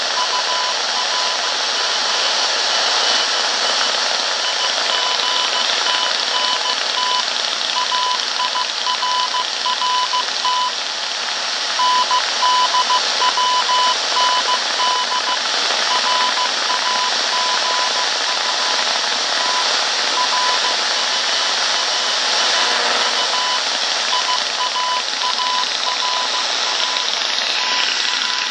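Morse code tone keyed on and off in short and long beeps over the hiss and static of a shortwave radio receiver.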